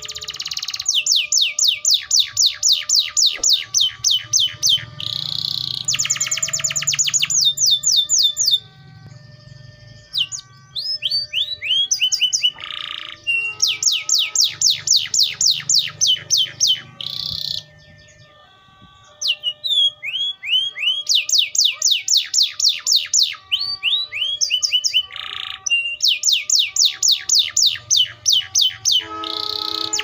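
Canary singing: bouts of fast trills of repeated high notes and downward-sweeping notes, each a few seconds long, with short pauses between them.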